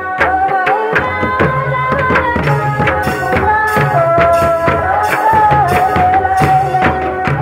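Folk drumming: a mandar barrel drum and other hand drums beaten in a fast, steady rhythm with deep booms. Over it runs a sustained melody line that holds its notes and slides between them, dipping about four seconds in and rising again a second later.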